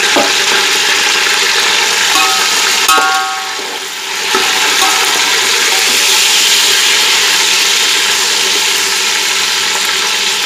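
Boiled chicken pieces sizzling loudly in hot oil with fried onions, turned with a metal slotted spoon; a brief metallic ring from the spoon on the pot about three seconds in.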